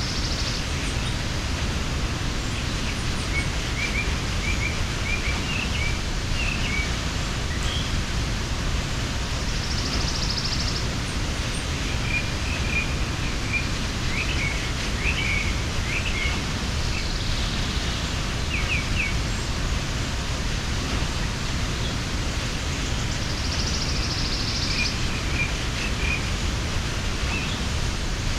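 Waterfall rushing steadily, with small birds chirping in short scattered runs of high notes and, twice, a brief high trill.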